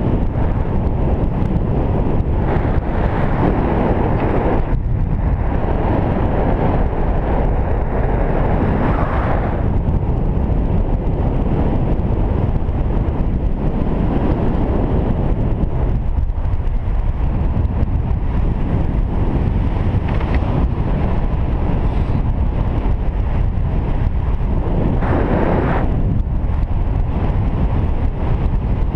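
Wind rushing over the microphone of a paraglider pilot's camera in flight, a loud steady buffeting that swells brighter a few times.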